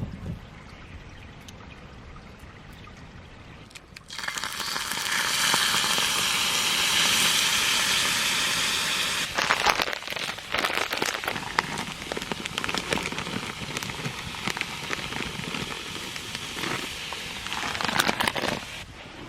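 Food going into a hot pan: a loud sizzle starts suddenly about four seconds in, then settles into crackling and spattering oil, stopping shortly before the end.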